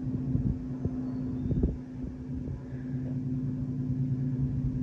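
Chainsaw mill cutting a slab from a log: the saw's engine runs at a steady pitch under load.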